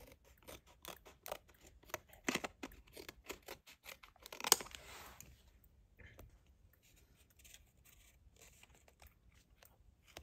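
Scissors snipping through a cardboard-and-plastic blister pack in a quick run of short, crisp cuts, with one louder crackle about four and a half seconds in. Fainter scattered clicks of the card being handled follow.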